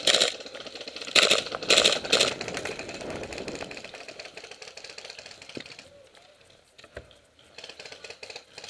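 Airsoft gun firing in rapid bursts of fast clicking, with louder bursts about a second and two seconds in, dying away about halfway through, then a few faint clicks near the end.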